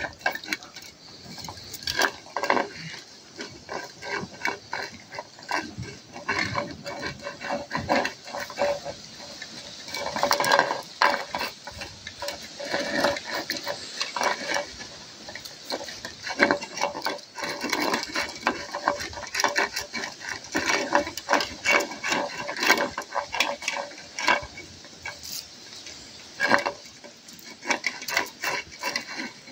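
Maremma sheepdog puppies eating from plastic bowls, with a dense, irregular clicking and clattering of food and bowls.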